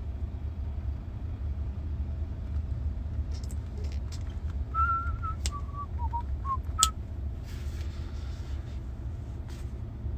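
Steady low rumble of a car cabin on the move. About halfway through, a person whistles a short tune of about five notes, dipping in pitch and coming back up. A sharp click comes right at the end of the tune.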